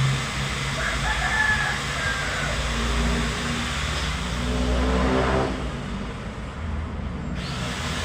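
A rooster crowing over a steady low hum.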